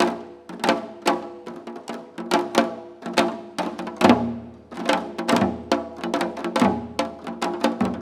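Janggu hourglass drums played together in a seoljanggu piece: quick, uneven runs of sharp, ringing strokes, several a second, with heavier accents every second or so.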